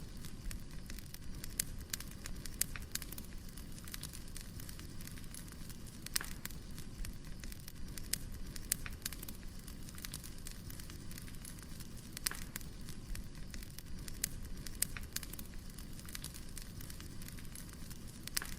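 Firewood burning: a steady low rumble of the fire with frequent sharp crackles and pops from the logs.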